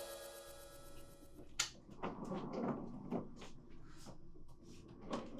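The ringing tail of a drum hit in the music fades out over the first second, then faint short knocks and clicks come at an irregular pace of about two a second, the sharpest about one and a half seconds in.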